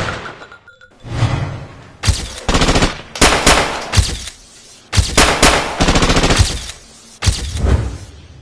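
Rapid automatic gunfire in about five separate bursts, each fading off with an echo.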